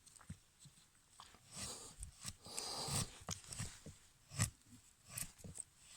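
Knife carving thin shavings off a split stick to make a feather stick: faint, irregular scraping strokes and small clicks.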